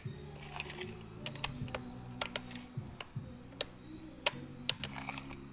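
Irregular sharp plastic clicks and taps from hands handling the housing and rear handle of a new, unused Stihl MS250 chainsaw, about a dozen in all, with the loudest few in the second half.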